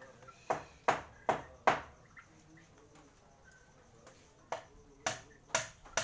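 Sharp knocks struck in quick runs of about two or three a second: four in a row, a pause of nearly three seconds, then another run starting towards the end.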